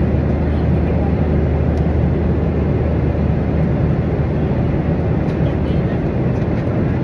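Airliner cabin noise in flight: the engines and rushing air make a steady, unbroken low rumble.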